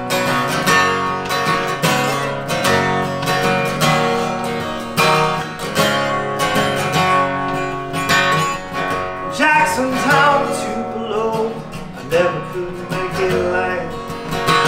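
Acoustic guitar strummed steadily with picked notes, an instrumental passage of a country-style song.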